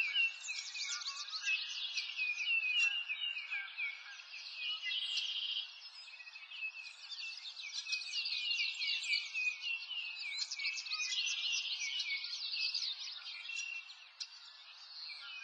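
A dense, continuous chorus of birds chirping and trilling: many quick high notes overlapping, with a few held whistled tones, dipping briefly twice.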